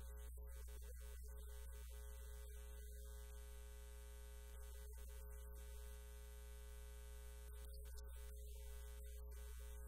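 Faint, steady electrical mains hum, a low drone with a stack of steady higher tones above it.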